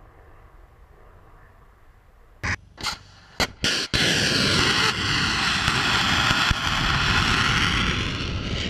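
Anti-ship missile launch: faint wind noise, then four sharp bangs in quick succession about two and a half seconds in, followed from about four seconds in by the loud, steady rush of the missile's rocket motor as it climbs away, easing slightly near the end.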